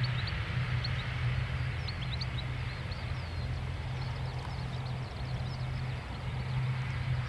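Airliner engines running as a steady low hum, with small birds chirping over it, most often in the first few seconds.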